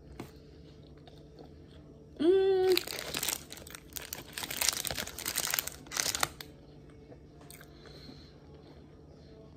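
A short hummed "mm" about two seconds in, then about three and a half seconds of dense crinkling and crackling, like a plastic wrapper being handled.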